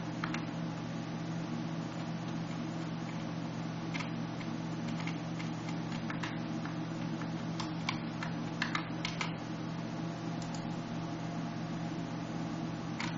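Scattered computer keyboard keystrokes and clicks, a small cluster of them about two-thirds of the way through, over a steady low electrical hum and hiss.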